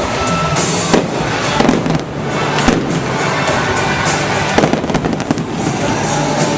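Fireworks going off in quick succession, sharp bangs and crackles one after another, with music playing underneath.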